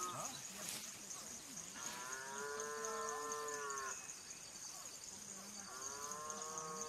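Cattle mooing: two long, drawn-out calls of about two seconds each, the pitch rising slightly and falling back, one starting just under two seconds in and the other near the end.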